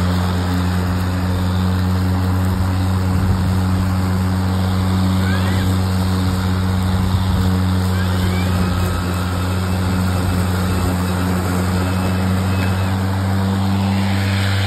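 EGO Select Cut XP 56-volt cordless electric lawnmower running while mowing grass: a steady electric motor and blade hum.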